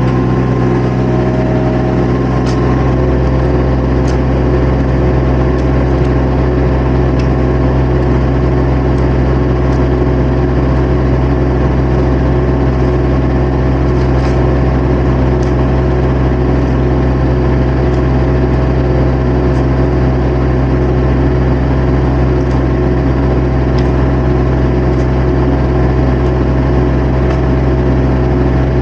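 Diesel engine of a compact construction machine (mini excavator or skid steer) running steadily and loud, heard from the operator's seat, with occasional light clicks and knocks.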